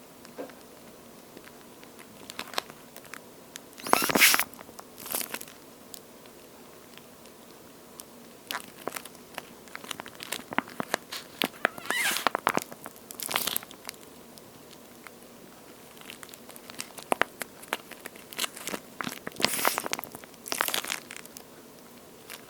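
A soft toast-shaped squeeze toy with a watery feel being squeezed and handled, giving crackly, crunchy bursts at irregular intervals, the loudest about four seconds in.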